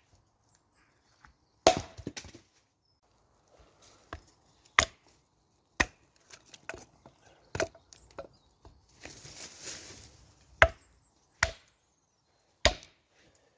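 Firewood being chopped: about seven sharp strikes of a blade into wood at uneven intervals a second or two apart, with a few lighter knocks and a short rustle between them.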